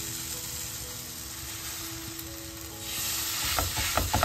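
Garlic-butter-spread bread sizzling face down on a hot tawa. The sizzle gets louder about three seconds in, with a few short clicks and knocks near the end.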